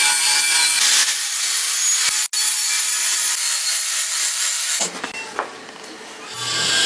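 Steady rasping noise of tool work, like sawing or sanding, with a brief break about two seconds in; it drops away about five seconds in and comes back near the end with a low hum under it.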